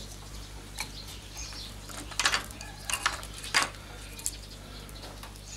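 Dry, insect-eaten wood being handled and broken apart by hand: a series of short, sharp cracks and clicks at irregular intervals, bunched between about two and four seconds in. The wood has been bored out by insects and crumbles to dust.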